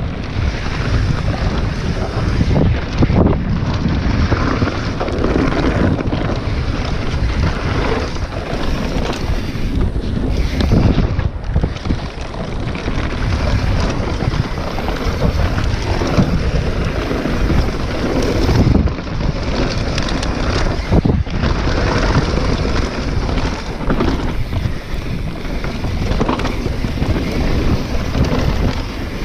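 Wind buffeting a handlebar-mounted action camera's microphone as a mountain bike descends a dirt trail at speed. Under it run the tyres' rumble on the dirt and frequent knocks and rattles of the bike over bumps.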